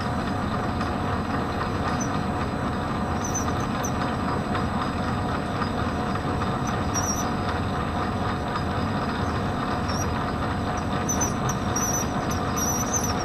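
Metal lathe running steadily with a constant hum, while a radius tool turns the end of a small bar; short high squeaks come now and then, more often near the end.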